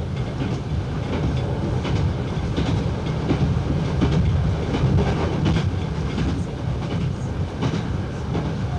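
Diesel multiple unit running at speed, heard from the driver's cab: a steady rumble of engine and wheels, with the clickety-clack of the wheels over rail joints clicking every second or so.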